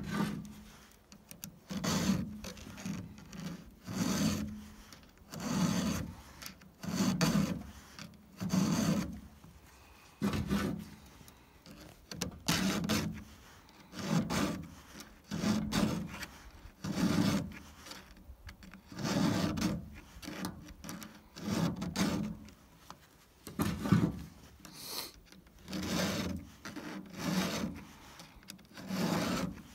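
Round chainsaw file rasping across the cutter teeth of a Stihl saw chain, sharpening them by hand. Steady repeated strokes, about one every second and a half.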